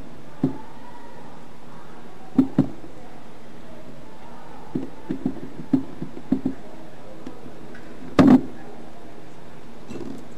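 Scattered dull knocks and taps of a plastic spatula and hands on a cutting board while peanut butter is spread on a tortilla, over steady background noise. There is a pair about two and a half seconds in, a quick run of taps in the middle, and one louder clatter about eight seconds in.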